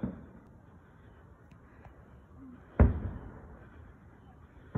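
A single loud firework explosion a little under three seconds in: a sharp bang that trails off in a rumbling echo. A weaker bang fades out at the very start.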